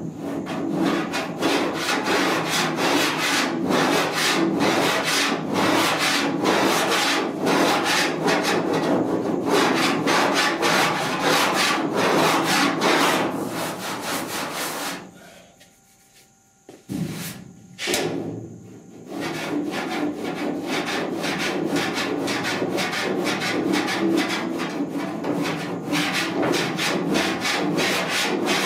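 Cheese-grater rasp scraping in quick back-and-forth strokes over partly cured body filler, shaving the sticky top layer down to rough it in before sanding. The rasping stops for a few seconds a little past halfway, with a couple of knocks in the pause, then carries on.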